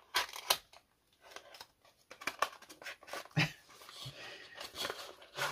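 Cardboard advent-calendar packaging handled and opened: scattered taps and clicks, with a stretch of rustling in the middle.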